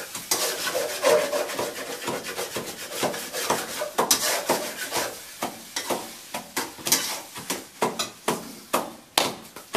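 Wooden pestle pounding and grinding in a small steel mortar: a run of irregular knocks, a few a second, with rubbing between the strokes.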